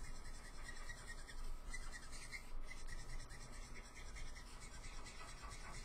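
Faint rubbing of a Copic alcohol marker's tip on paper, in repeated strokes as still-wet ink is blended in.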